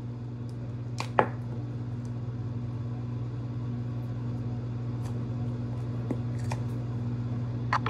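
A few light clinks of a spoon against a small glass jar as salt is scooped out, the loudest two about a second in, over a steady low hum.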